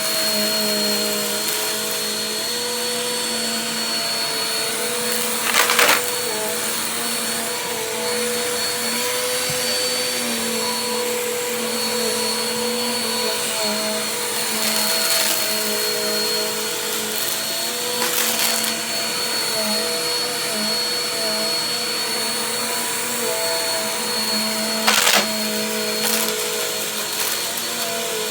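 Vacuum cleaner running steadily with a constant motor whine, with a few brief louder rushes of air, the biggest about six seconds in and near the end.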